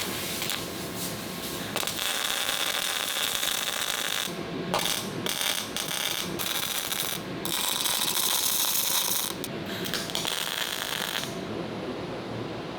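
Wire-feed (MIG) welder tacking a steel filler plate into a hole in a cast tank turret: a steady crackling hiss in four runs of a few seconds each with short breaks between, stopping shortly before the end.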